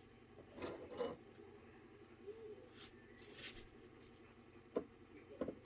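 Faint, scattered light clicks and rustles of small handling sounds over quiet room tone, a few soft taps spread out with gaps between them.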